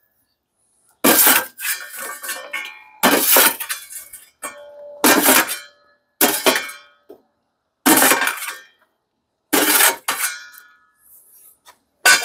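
A steel coal shovel scraping and pushing lit charcoal briquettes across a stainless steel grill firebox. The briquettes clatter and clink in a series of separate scrapes, roughly one every second, and the metal sometimes rings briefly.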